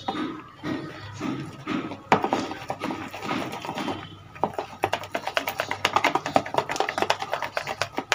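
A fork beating a thick, wet marinade in a bowl, with quick clicks of the fork against the bowl that get fast and dense about halfway through. Background music plays underneath.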